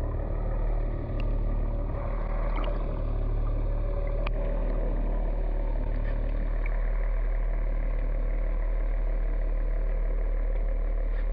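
Steady low drone of a boat's engine heard underwater through a submerged camera, with a couple of faint clicks.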